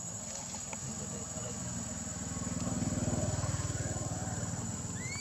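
A motor vehicle's engine passing by, growing louder to a peak about three seconds in and then easing off, over a steady high insect drone. A short rising chirp comes at the very end.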